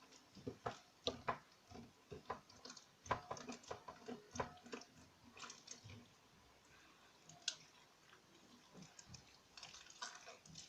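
Glittery slime being kneaded and squeezed by hand as gouache paint is worked into it, giving faint irregular wet squishes and small clicking pops. The pops are busiest over the first few seconds and sparser after, with one sharper pop past the middle.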